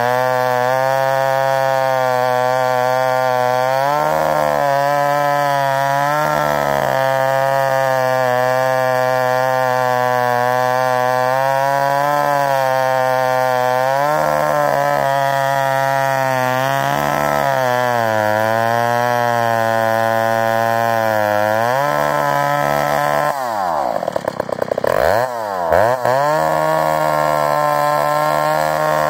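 McCulloch Super 55 single-cylinder two-stroke chainsaw, bored out to 83 cc, running at high revs while bucking a grand fir log with a 32-inch bar and .404 full-skip chain. The engine note sags and recovers as the chain loads in the cut. About 23 seconds in, the engine drops off sharply and revs back up twice.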